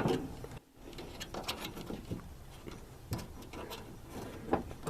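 Scattered light clicks and taps of a riding mower's small deck linkage being fitted and handled by hand, with a few sharper knocks near the end.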